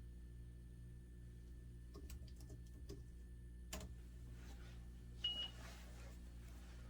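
A single short, high electronic beep from the lab equipment a little after five seconds, the loudest sound, over a steady low hum, with a few light clicks before it and a sharper click about four seconds in.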